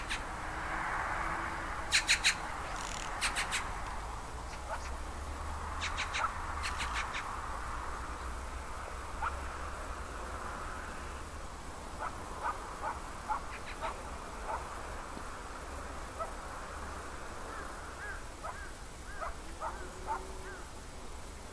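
Steady outdoor background hiss, with a few sharp clicks in the first seven seconds and a scatter of short, high chirps through the second half.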